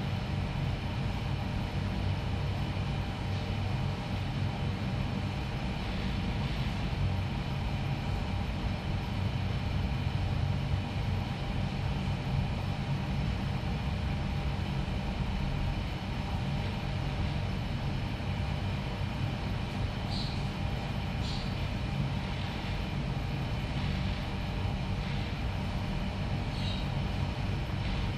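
Steady low mechanical hum with fixed tones through it, unchanging throughout, with a few faint short high chirps about twenty seconds in and again near the end.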